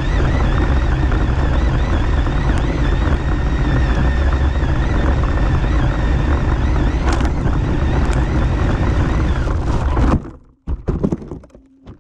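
Electric motor of an RC short course truck whining and wavering in pitch under a loud rush of wind and grass on the onboard camera. The sound cuts off abruptly about ten seconds in, followed by a few knocks.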